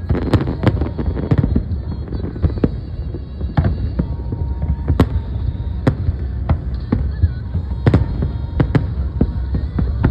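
Fireworks display: bursting aerial shells give sharp bangs at irregular spacing, roughly one or two a second, over a continuous low rumble.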